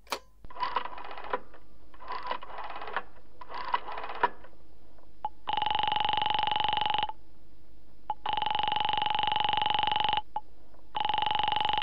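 Telephone sound effects heard through the handset: three short runs of rapid clicking, then a ringing tone on the line that sounds three times, each about two seconds long with a short gap between, as the call to the operator rings through.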